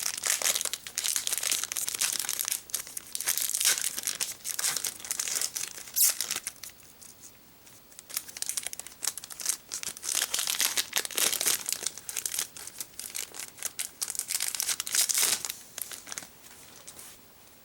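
Foil Pokémon booster pack wrapper crinkling and tearing as it is opened, with a sharp rip about six seconds in and a quieter pause shortly after before the crinkling resumes.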